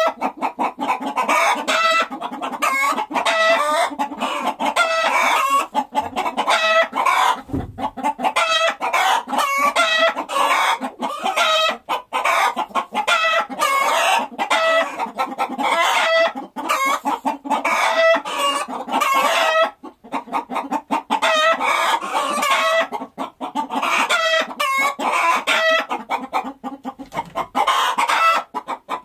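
A flock of hens clucking without pause: many short, overlapping calls.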